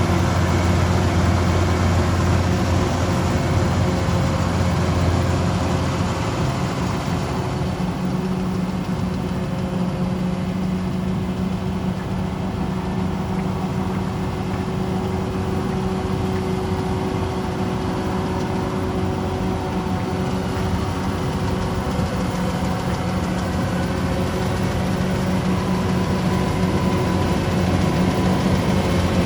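Kubota DC-105X rice combine harvester's diesel engine and threshing machinery running steadily. The low hum eases and gets slightly quieter about six seconds in.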